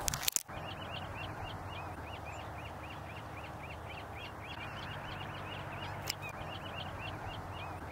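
A flock of black-legged kittiwakes calling: many short, high, overlapping calls, several a second, over a steady background rush.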